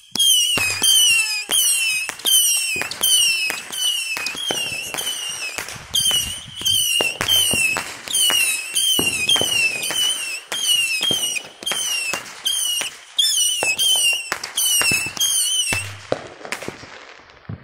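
Fireworks going off in a rapid string, about two shots a second. Each shot has a short whistle that falls in pitch, and the string stops about sixteen seconds in.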